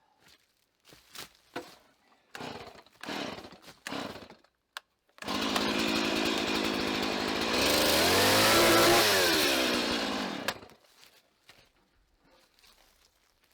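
A few seconds of light handling knocks and rustles, then a power saw runs for about five seconds, its pitch rising and then falling before it stops.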